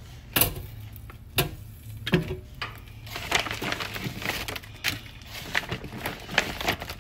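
Frozen chicken wings being set one after another into an air fryer's basket: irregular sharp knocks and clacks of the wings against the basket grate, over a low steady hum.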